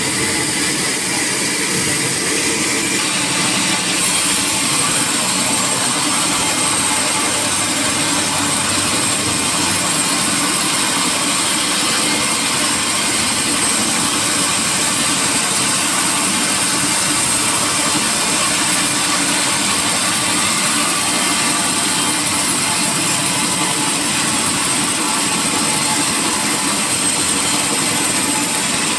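Sawmill machinery running steadily: a loud, continuous mechanical din with a steady high whine over it.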